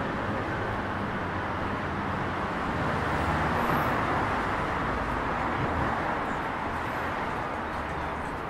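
City street traffic noise: a steady hiss and low rumble of passing cars, swelling slightly around the middle.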